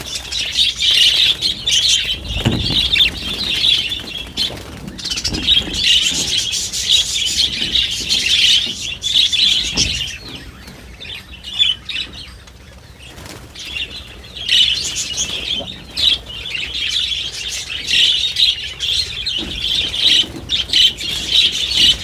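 A flock of budgerigars chattering continuously and flapping their wings as they are let out of a wire cage, with a couple of dull knocks. The chatter drops for a few seconds past the middle, then picks up again.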